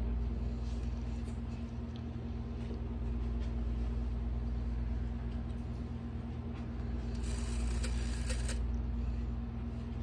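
Rotary telephone dial being turned by finger, with faint ticks, and about seven seconds in a brief whirring run of clicks as the dial spins back. A steady low hum runs underneath.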